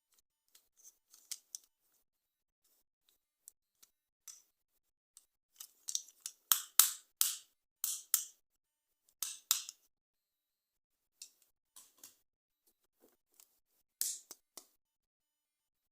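Toy packaging being handled and opened: irregular short rustles and clicks, busiest and loudest from about six to ten seconds in, with another sharp one about fourteen seconds in.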